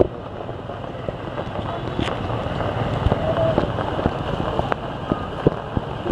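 Steady outdoor background noise with a low rumble, a few scattered clicks and a faint distant voice about three seconds in.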